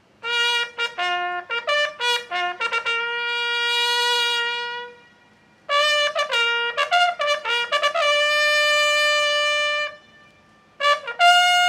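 Bugle sounding a salute call in three phrases of quick notes. The first two phrases each end on a long held note, and the third begins near the end and holds a higher note.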